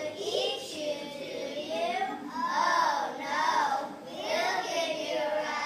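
Children singing, the melody moving through long held notes that rise and fall.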